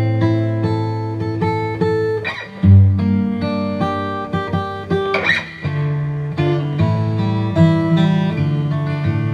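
Steel-string dreadnought acoustic guitar playing a slow instrumental introduction: picked bass notes and melody over chords, with a strummed chord about two seconds in and another about five seconds in.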